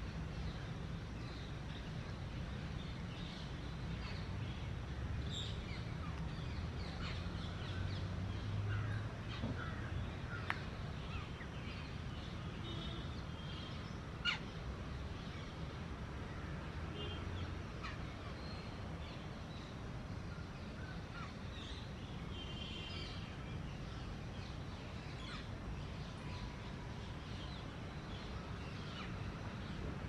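Outdoor ambience of birds calling here and there over a steady low rumble, with a couple of sharp clicks about ten and fourteen seconds in.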